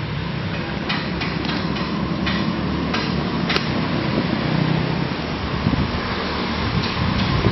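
Go-kart engines running around the track, their pitch rising and falling, with a string of sharp knocks in the first half and two more near the end.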